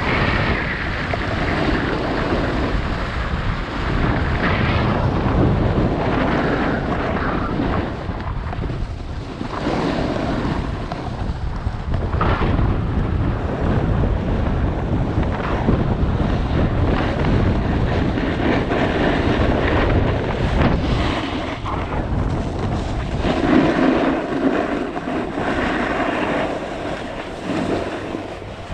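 Snowboard sliding and scraping over groomed snow during a run, mixed with wind rushing over the microphone. The steady rush swells and eases every few seconds as the rider turns.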